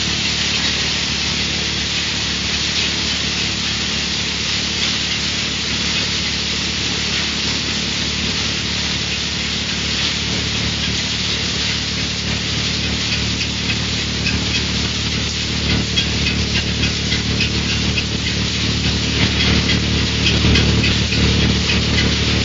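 Acorn shelling machine running steadily: a motor hum under a constant dry rattle of acorns and shell pieces pouring through the machine and out of its chute. The rattle gets busier and a little louder in the last third.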